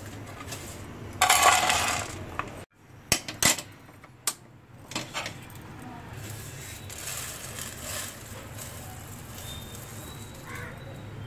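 Dry whole spices and a metal pan and utensils being handled: a loud rattle of seeds about a second in, then several sharp clinks and clicks, then softer rustling as the roasted seeds are tipped out of the pan.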